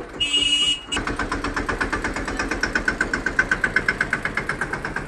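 Tractor's diesel engine idling with a steady, rapid, even beat of firing strokes. In the first second it is briefly replaced by a different, higher-pitched sound.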